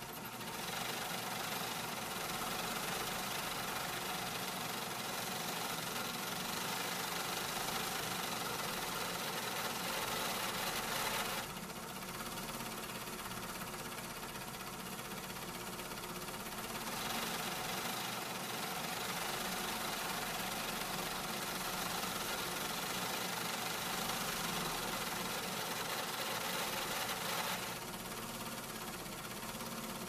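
Small-factory metalworking machinery running steadily: a dense mechanical din with several steady hums. A higher part of the noise drops out about twelve seconds in, comes back around seventeen seconds, and drops out again near the end.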